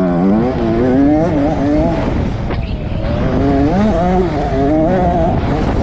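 A 65cc two-stroke motocross bike engine under hard throttle. Its pitch climbs and drops again and again as the rider revs and shifts up while accelerating along the track.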